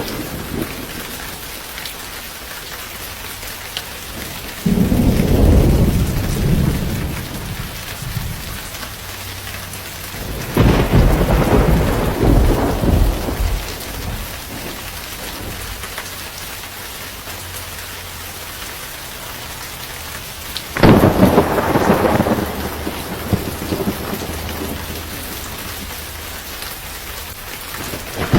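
Steady rain with rolling thunder: three low rumbles of two to three seconds each, about five, ten and twenty-one seconds in, the last one breaking suddenly.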